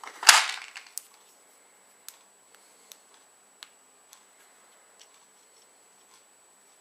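Match heads igniting in a single sudden, loud burst a quarter second in that dies away within about half a second, followed by a scattering of light ticks.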